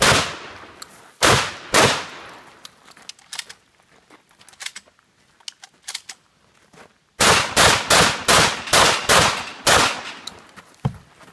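Gunshots in a 3-gun stage: three handgun shots in the first two seconds, then a few seconds of faint clicks and handling, then a fast string of about seven shotgun shots, roughly three a second, fired at a steel plate rack.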